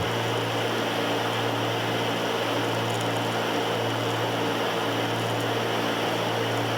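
Steady cabin drone of a Cessna 310's twin piston engines running at reduced climb power, with an even hum.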